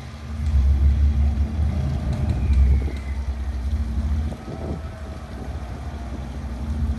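Motor yacht's engines running with a deep, steady rumble and a constant hum, louder for the first four seconds or so and then easing off, as it manoeuvres to dock.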